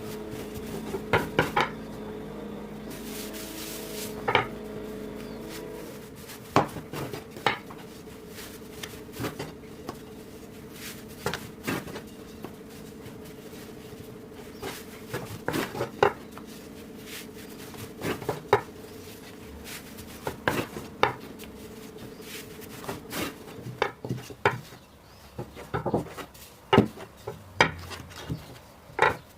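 Kitchen utensils knocking and clinking against a dish or bowl in irregular taps, over a steady hum that fades about three-quarters of the way through.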